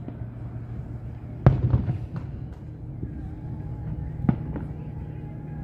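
Aerial fireworks shells bursting at a distance: a loud boom about a second and a half in, followed by a few crackles, another boom a little after four seconds and fainter pops between them. A steady low hum runs underneath.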